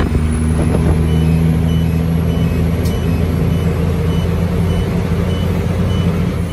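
Kenworth T909 truck's Cummins X15 diesel engine running steadily at cruising speed, heard from inside the cab. From about a second in, a short high beep repeats about every half second over it.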